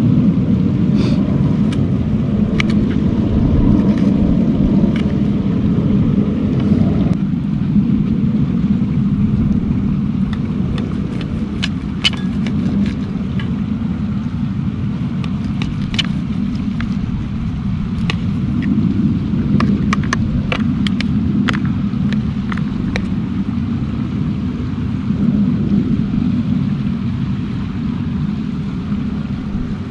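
Steady low rumble of wind buffeting the microphone, with scattered light clicks of a knife and fork against a plate as steak is cut.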